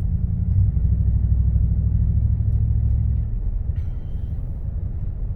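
Cadillac Escalade 6.2-litre V8 with a muffler delete, heard from inside the cabin: a deep exhaust rumble that swells as the engine is given throttle for about three seconds, then settles back.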